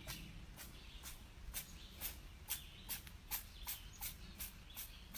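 A cat sneezing over and over in quick, short sneezes, about two a second, each one sharp and brief.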